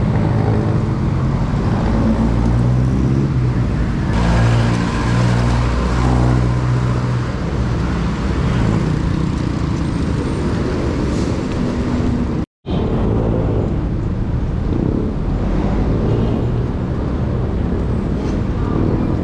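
Road traffic on a highway: engines of nearby vehicles running steadily under a constant road noise. The sound cuts out completely for a split second about twelve and a half seconds in.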